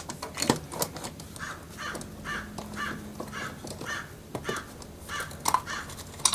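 A bird calling over and over, short calls at about three a second for several seconds, with a few sharp clicks in between.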